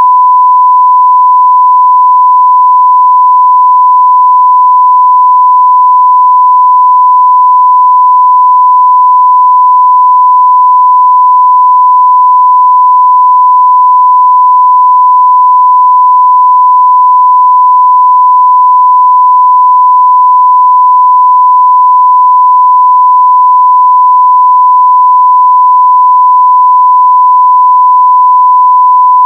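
A steady 1 kHz sine-wave test tone at full level, held unbroken at one pitch.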